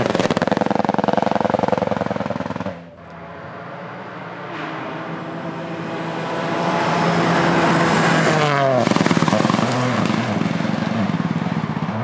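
Toyota GR Yaris AP4 rally car's turbocharged three-cylinder engine at full throttle, passing twice on a gravel stage with stones and grit spraying from the tyres. The first pass cuts off abruptly about three seconds in; then the car is heard approaching, growing louder to a peak about two-thirds of the way through, where the engine's pitch drops as it goes by.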